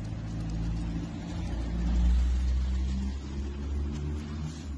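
A motor vehicle's engine running nearby: a steady low hum that gets louder about two seconds in, then eases off.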